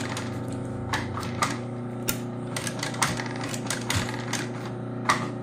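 Post-bed industrial sewing machine stitching the pieces of a sneaker upper: a steady motor hum with irregular clattering clicks as the needle runs in short spurts.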